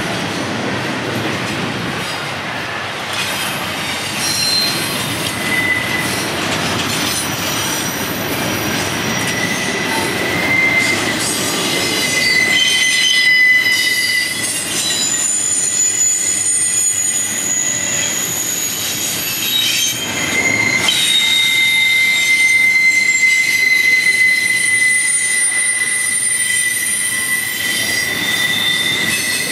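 Intermodal freight train cars rolling past on a curve, their wheels squealing against the rails in several steady high whines that come and go over a low rumble. The rumble fades somewhat about halfway through, while the squeal grows stronger.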